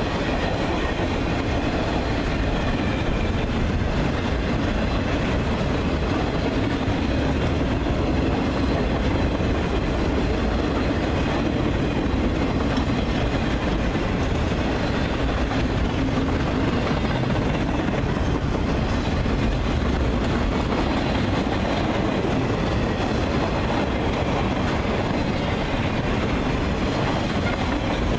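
Freight-train cars, flatcars loaded with highway trailers, rolling steadily past on steel wheels, a continuous rolling noise of wheels on rail.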